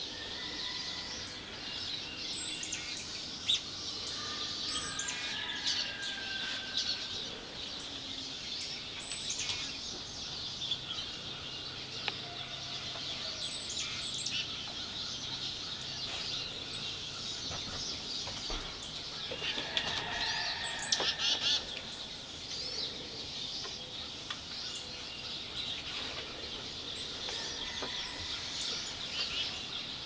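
A mixed flock of backyard songbirds chirping and calling over one another in a dense, continuous chatter, with a louder cluster of calls about twenty seconds in.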